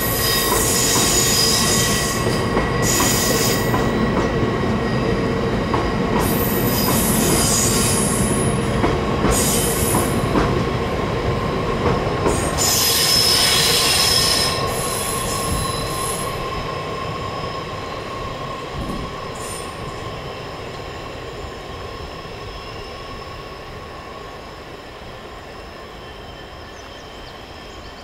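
Train passing with its wheels squealing in steady high tones over a heavy rumble; from about halfway through it fades away as the train moves off.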